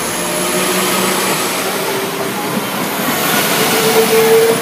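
Three-car Class 172 diesel multiple unit passing close by, loud and steady, with a brief steady tone standing out near the end.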